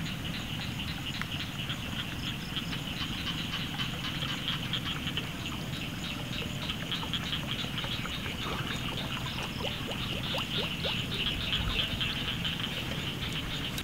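A chorus of frogs calling together in a fast, unbroken pulsing, growing a little louder near the end, over a low steady rumble.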